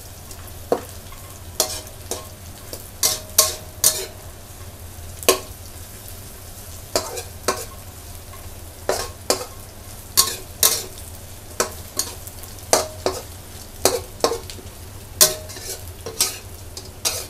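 Metal spatula scraping and tapping against a metal wok in irregular strokes, about one or two a second, as crispy pork belly pieces and chopped garlic are stir-fried, with oil sizzling underneath as the fat renders out of the pork.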